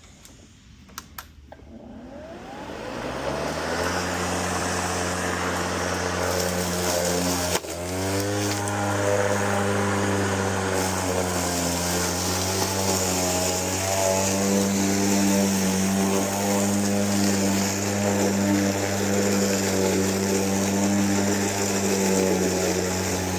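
Ryobi 40V brushless battery lawnmower: two clicks, then the motor and blade spin up over about two seconds to a steady hum. There is a brief dip about seven and a half seconds in, after which it runs on steadily with its pitch wavering slightly.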